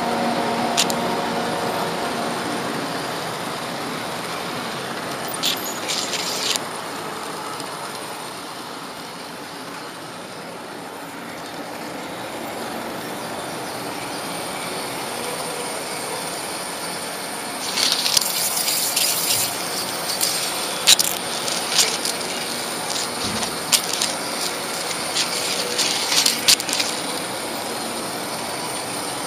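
Model electric train running along the layout track with a steady rolling noise. From a little past halfway it breaks into a run of sharp clicks and clatter as the wheels go over the track.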